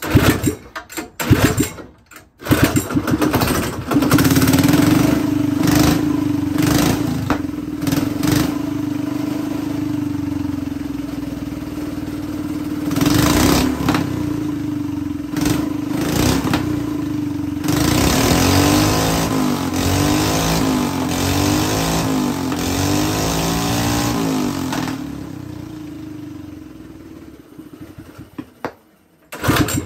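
Pull-started single-cylinder small engine, converted to run on hydrogen and here fed an engine-oil and petrol mix, catching after a few pulls and running steadily. Later its speed rises and falls unevenly, then it runs down and stops near the end.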